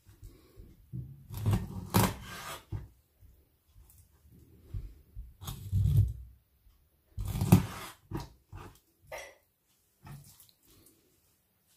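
A kitchen knife cutting raw chicken wing pieces at the joints on a wooden chopping board: wet handling of the meat and three louder chops of the blade through the joint and onto the board, the last the loudest.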